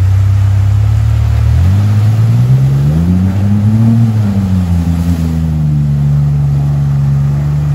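Ford Ranger pickup's engine running as it wades through deep floodwater on a PVC snorkel intake, not stalling. It idles steadily at first, revs up about two seconds in, then eases back and holds a slightly higher steady pitch.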